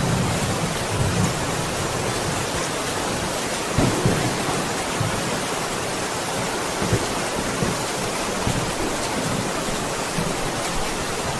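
Steady heavy rain with a thunderstorm: an even rain hiss throughout, with brief low thunder rumbles, the strongest about four seconds in.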